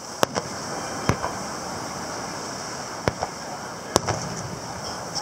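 Distant aerial firework shells bursting: about five sharp bangs, spaced unevenly, the loudest about four seconds in.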